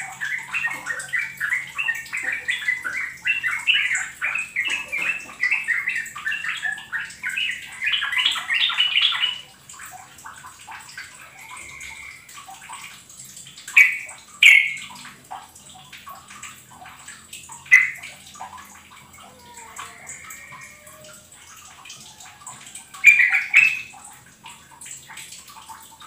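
Yellow-vented bulbul (trucukan) calling: a fast, steady run of short chattering notes for about the first nine seconds, then a handful of loud short calls several seconds apart.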